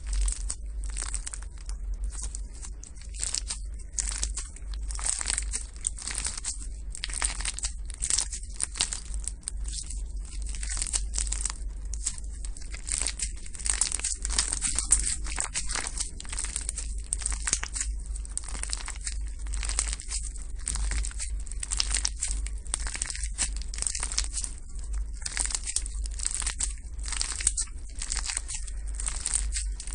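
Slime being squeezed and pressed by hand, a dense, continuous run of short crackles and pops over a steady low hum.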